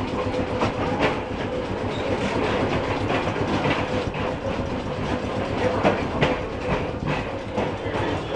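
New Orleans Public Service streetcar 832 running along the track, heard from inside the car: a steady rumble of wheels on rail with irregular clicks and knocks, and a faint steady hum underneath.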